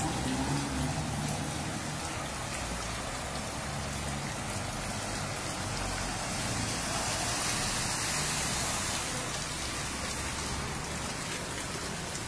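Heavy rain falling on a flooded street: a steady hiss of rain on water, with a low rumble under it in the first half.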